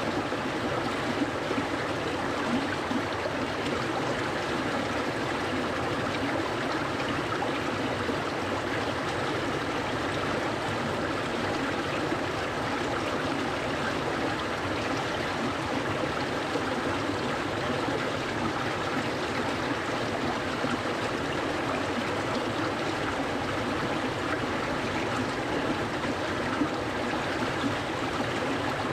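Clear, cold stream flowing steadily, a continuous even rush of running water.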